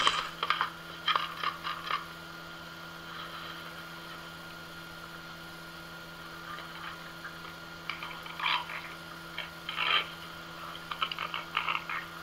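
Amazon parrot making short, rough croaking calls in several clusters, over a faint steady hum.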